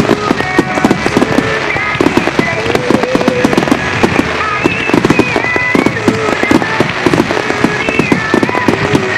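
Starmine fireworks barrage: many shells bursting in rapid succession, a dense, unbroken stream of booms and crackles.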